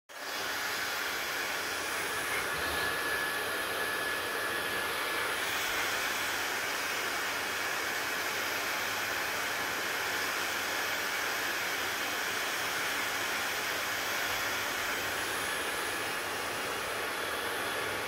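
Handheld hair dryer running steadily, its fan and airflow making an even rushing noise. A faint high whine sits in the sound for the first five seconds or so, then fades out.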